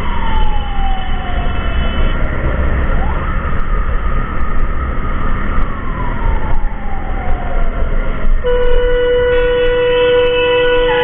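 Emergency siren wailing in slow sweeps that fall in pitch, repeating every few seconds, over a low road-and-wind rumble. About eight seconds in, a steady horn-like tone starts and holds.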